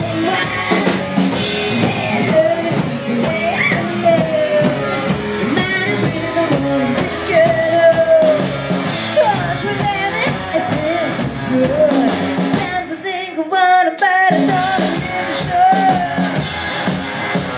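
Live rockabilly band: a woman singing over upright bass and drum kit. About two-thirds of the way through, the bass and drums drop out briefly, then come back in.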